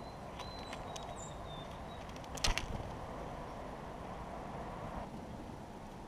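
A white-breasted nuthatch at a seed-covered feeder log: a short clatter of sharp clicks about two and a half seconds in as it leaves the seed. Faint, thin, high bird notes come in the first two seconds, over a steady outdoor hiss.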